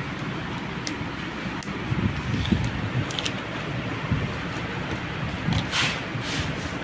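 Hands handling a paper invoice and a small cardboard earbuds box: a few short clicks and, near the end, two brief rustles, over a steady low rumble.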